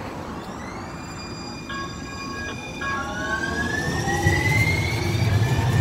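Metro Green Line light-rail train pulling into the platform: a brief steady tone, then an electric whine gliding upward, with a low rumble building from about four seconds in as the cars come alongside.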